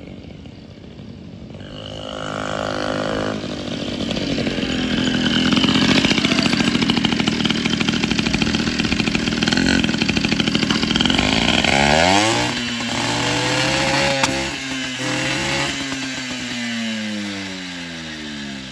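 Small motorcycle engine running and being revved. It grows louder over the first few seconds, climbs in pitch about twelve seconds in, then drops in pitch near the end.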